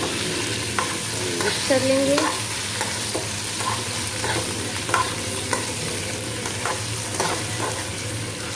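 Boiled potato cubes sizzling in hot oil in a kadai while being stirred with a slotted spatula, with a steady frying hiss and scattered clicks and scrapes of the spatula against the pan.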